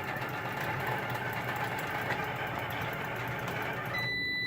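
Computerized sewing machine stitching steadily at speed, a fast even rattle of the needle. Near the end a steady high electronic beep sounds as the thread breaks.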